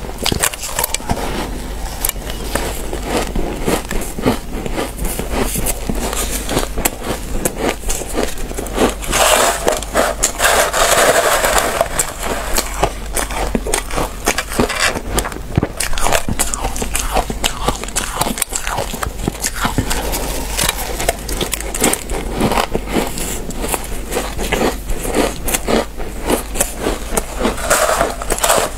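Purple shaved ice crunching as it is bitten and chewed, and squeaking and crackling as a plastic-gloved hand squeezes and scoops the packed chunks from a metal tray. A dense, continuous crackle of many small clicks, louder about ten seconds in.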